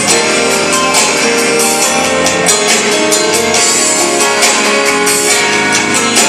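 Band playing loud music, with guitar and sustained chords over regular percussion hits.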